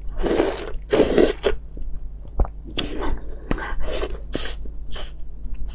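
Close-up mouth sounds of eating a whole large red prawn: biting and sucking at the head and shell, with crunching and wet slurps in several short noisy bursts and a few sharp clicks.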